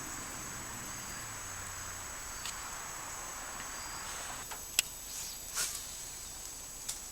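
Insects droning steadily in high thin tones over a soft outdoor hiss, with a few faint clicks and one sharp tick a little under five seconds in.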